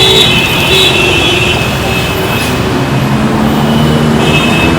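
Dense road traffic with vehicle engines running. High held horn-like tones sound over the first second or so, and a lower engine drone builds near the end.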